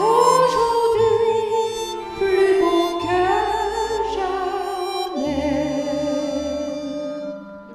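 A woman singing a slow, lyrical song with vibrato over a sustained instrumental backing track; the music fades near the end.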